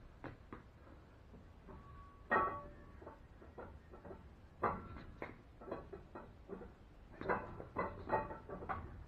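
Steel camshaft being fed by hand into a Cummins Big Cam IV diesel block: irregular metallic clinks and knocks as it goes in, several ringing briefly, the loudest about two seconds in.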